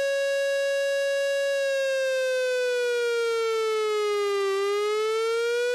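Synthesized emergency-alert alarm tone, one buzzy pitch with strong overtones. It holds steady for about two seconds, then glides slowly down and rises back up near the end.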